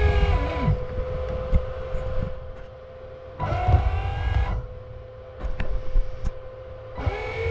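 1/8 scale RC 385CF hydraulic excavator working: a steady motor-driven pump whine, with three louder surges and gliding whines as the hydraulics are loaded, at the start, about three and a half seconds in and near the end, and a few sharp clicks.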